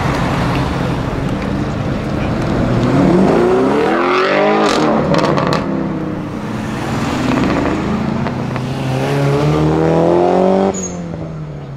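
A modified car's engine accelerating hard: the pitch climbs, drops at a gear change, then climbs again. A few sharp cracks come about five seconds in, and the sound cuts off abruptly near the end.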